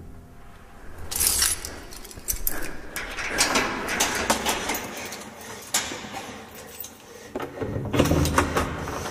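A run of rustles, clicks and knocks from someone moving about and handling things in a room, with the busiest clatter about eight seconds in.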